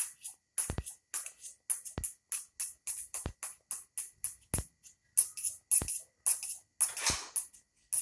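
Background music with a steady electronic beat: a low kick drum about every second and a quarter, with quick high hi-hat ticks in between.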